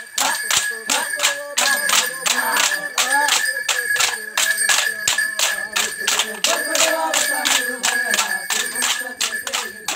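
Short wooden kolkali sticks clacking together in a steady rhythm, about three strikes a second, with dancers' voices chanting along.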